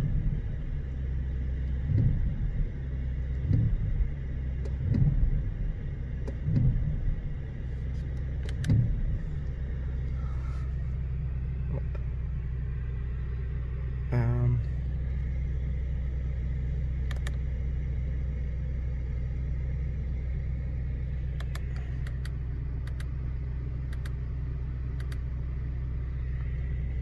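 Audi RS6 C8's twin-turbo V8 idling, a steady low rumble heard from inside the cabin, with several short swells in the engine note in the first nine seconds. Faint clicks come later on.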